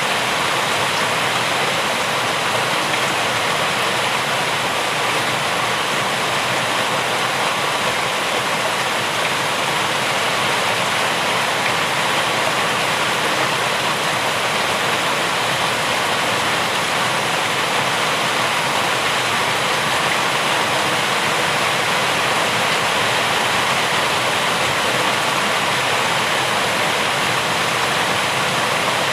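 Steady rain falling, a dense, even hiss with no breaks or individual drops standing out.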